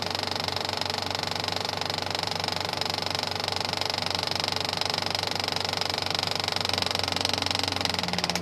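Film projector running: a steady, rapid mechanical clatter over a hum. It stops right at the end.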